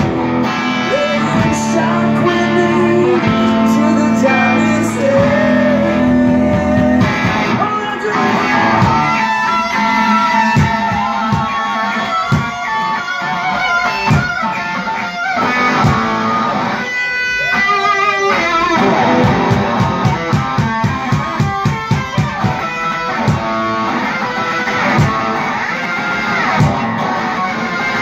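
Live rock music with no singing: an electric guitar playing a solo of sustained, bent notes that glide up and down, over a steady beat, with a stretch of fast repeated notes about two-thirds of the way through.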